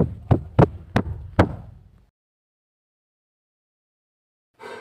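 Blows landing on a person in quick succession: five hard thumps about a third of a second apart, stopping about two seconds in.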